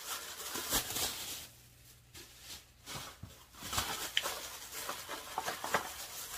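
Handling noise from plastic toiletry bottles being picked up and set down: scattered rustles and light taps, quieter in the middle.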